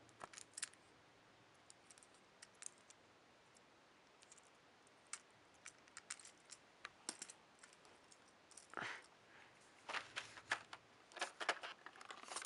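Faint scattered clicks and light rustling of a small plastic Thomas Minis toy engine being turned over in the fingers, with a cluster of louder clicks and rustles in the last few seconds.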